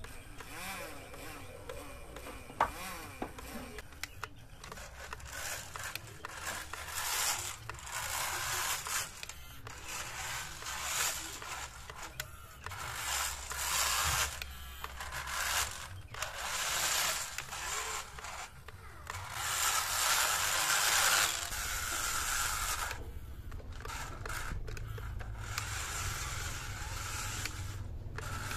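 Homemade RC off-road car driving over dirt and gravel: a whine from its small motors and gearbox that rises and falls, with tyres scraping and crunching over the ground, coming and going in bursts.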